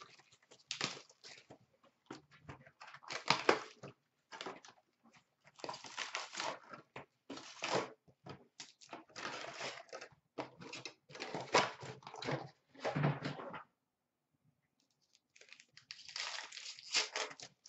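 Hockey card pack wrappers crinkling and tearing open, with cards and wrappers rustling as they are handled, in irregular bursts with a short pause about three-quarters through.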